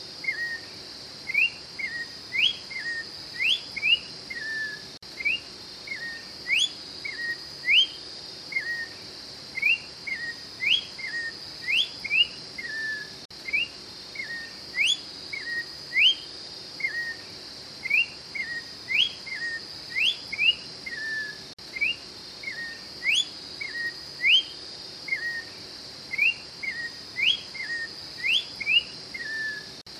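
Orange-backed troupial (Icterus croconotus) singing: loud, clear whistled phrases of quick rising notes, each ending on a lower falling slur, repeated over and over. A steady high-pitched drone runs underneath.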